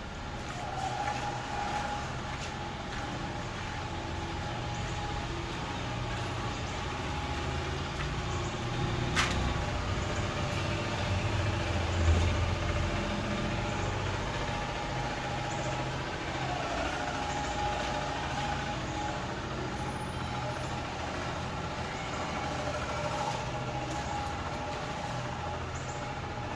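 An engine running steadily, with a sharp click about nine seconds in.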